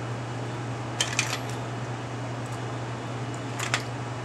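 Small hard parts clicking and clinking as they are moved about on a workbench: a few sharp clicks about a second in and two more a little before the end, over a steady low hum.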